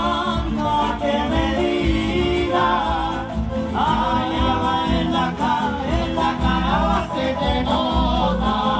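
A live Latin dance band playing, with singing over a steady beat.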